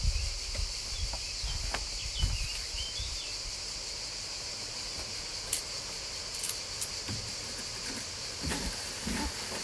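Steady high-pitched chorus of insects, with a few short bird chirps in the first seconds and faint knocks and handling sounds.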